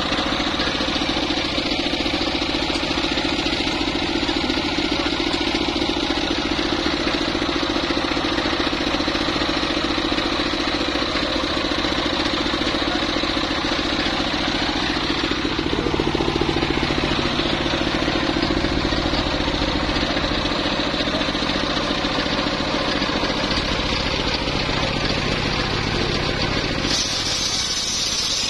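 Engine of a homemade circular-saw bench running steadily, driving the large saw blade. Near the end the blade starts cutting into a log, adding a brighter hissing sound.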